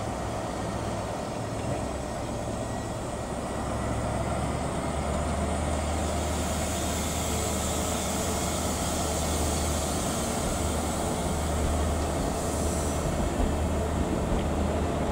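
Class 43 HST pulling out of a station, its Mark 3 coaches rolling slowly past over the rails. A steady low diesel drone from the power cars underlies it, and the whole sound grows somewhat louder from about four seconds in.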